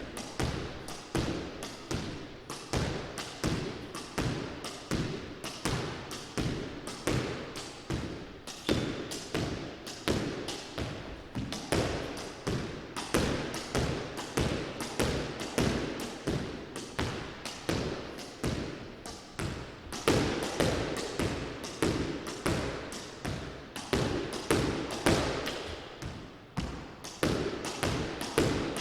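Squash ball struck again and again by a racket in a solo warm-up drill, racket hits and wall and floor rebounds in a quick, steady run, each hit trailing a short echo off the court walls.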